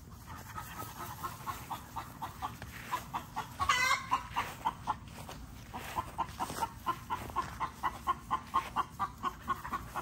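Chickens clucking from a nearby coop in a steady run of short clucks, about three a second, with one louder, longer call about four seconds in.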